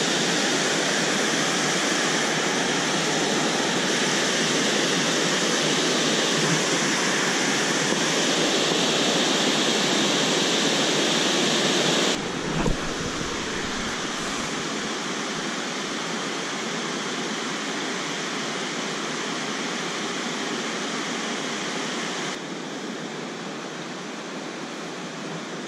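Fast-flowing floodwater rushing, a steady noise of swollen river water. It drops abruptly in level about twelve seconds in and again about twenty-two seconds in.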